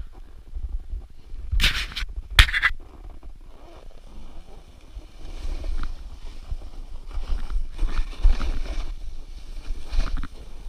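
A snowboard sliding and carving through powder snow, with two sharp, loud scrapes about two seconds in and hissing scrapes of the board on snow from about five seconds on. Wind rumbles on the body-mounted action camera's microphone throughout.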